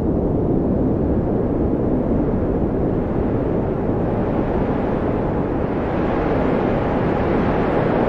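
Blizzard wind blowing steadily: an even, low rushing noise with no gusts or breaks.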